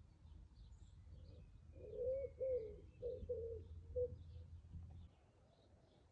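A pigeon cooing one phrase of about five low notes, with faint high chirps of small birds around it.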